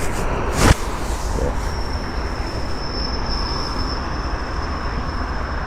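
Train rolling past with a steady rushing rumble; a steady high-pitched wheel squeal comes in about two seconds in, after a sharp click under a second in.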